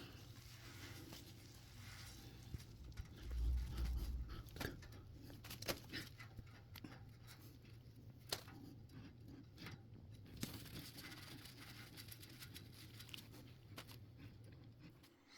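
Faint handwork noises from a plumbing job: rustling and scattered light clicks and taps, which fit wiping excess plumbing paste off a fitting with a damp cloth. There is a low thump about three seconds in, over a steady low hum that stops near the end.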